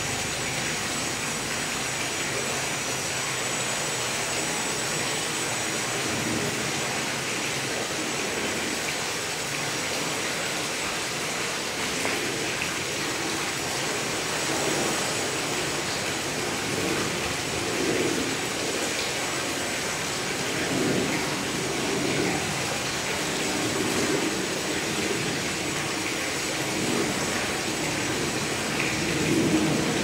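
Small 330 g quadcopter with all four propellers turning the same direction, its motors and props whirring steadily in flight with a thin high whine. The sound grows a little louder and more uneven in the second half as it manoeuvres.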